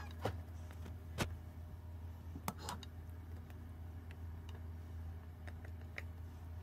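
Hard plastic clicks and taps from a cat food-puzzle toy as its cups are pressed and nudged: a few sharp clicks in the first three seconds, then fainter ticks, over a steady low hum.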